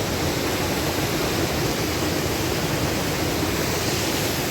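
Fast-flowing river rushing steadily, a strong current.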